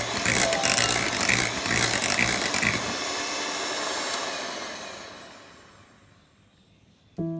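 Electric hand mixer running, its beaters whirring through a thick cream cheese mixture in a glass bowl with a rhythmic pulsing about twice a second. The sound fades away from about two-thirds of the way in to near silence, and piano music starts right at the end.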